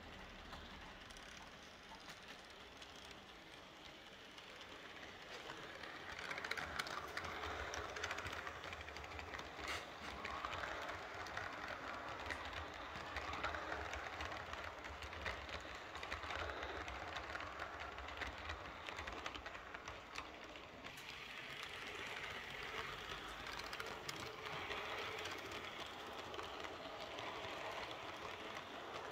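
H0-scale model passenger train rolling along the layout's track, a steady clatter of small metal wheels on rails and rail joints with a low motor hum beneath. It grows louder about five seconds in as the coaches pass close by and stays up, dipping briefly around twenty seconds in.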